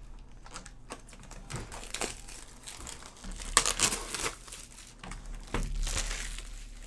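Plastic shrink-wrap on a sealed Topps Chrome trading card box crinkling in irregular bursts as the box is handled and turned over, loudest a little past halfway through.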